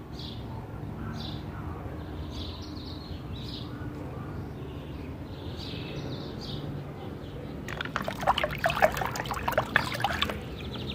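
A hand splashing and sloshing in muddy water in a plastic tub, starting about eight seconds in and lasting a couple of seconds.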